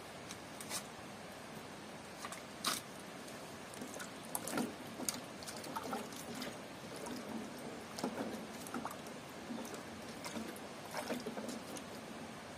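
Hands swishing and rubbing apples in a pot of water, with small irregular splashes and knocks over a steady background hiss.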